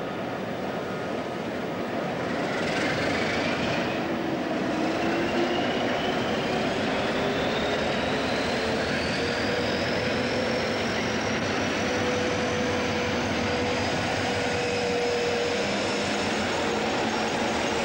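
SNCB class 51 diesel-electric locomotive running close by, its engine note and a high whine rising steadily in pitch over several seconds, then holding.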